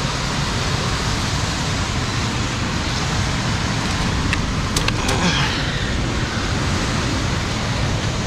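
Steady rushing noise of sea surf and wind along the rocky shore, with a few sharp clicks about halfway through.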